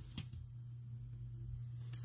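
Faint handling of a trading card and a rigid plastic toploader as the card is slid into the sleeve: one light click a fraction of a second in, then soft near-quiet handling over a steady low hum.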